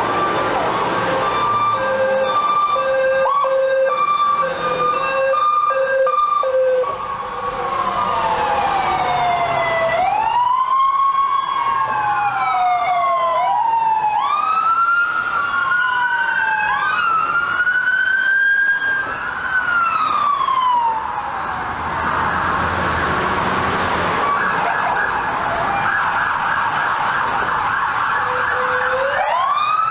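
Sirens of a passing ambulance and emergency vehicle convoy. First comes a repeated short steady tone. Several overlapping slow wails rise and fall, then give way to a fast yelp, and a new wail starts rising near the end.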